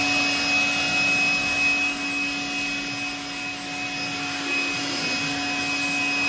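Makute PB008 3800 W electric leaf and dust blower with a brushed motor running at a steady high speed: a constant motor whine over the rush of air from the nozzle.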